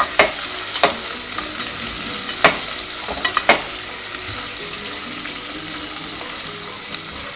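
Onions sizzling as they are sautéed in hot oil, stirred so that the utensil knocks sharply against the pot about five times in the first few seconds.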